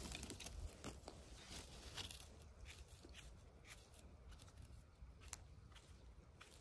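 Faint, irregular crackling and rustling, with small clicks scattered throughout.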